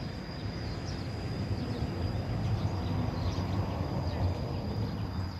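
Outdoor ambience: a steady low rumbling noise with one thin, steady high-pitched insect drone above it.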